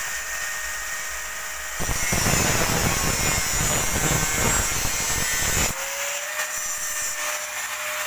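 Angle grinder with a cutoff disc running free with a steady whine, then cutting through an over-long steel bolt for about four seconds with a loud grinding noise, then running free again near the end.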